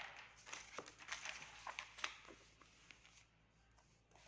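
Faint rustling and light taps of loose paper sheets being moved and laid down, dying away to near silence in the last second or so.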